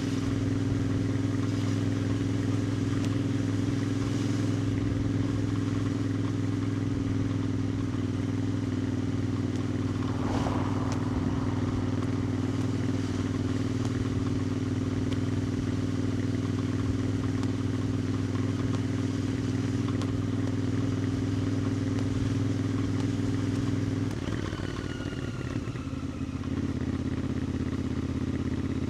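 Royal Enfield Interceptor 650's 648 cc parallel-twin engine and exhaust running steadily at cruise. About 24 seconds in the note dips and settles lower and a little quieter as the rider eases off.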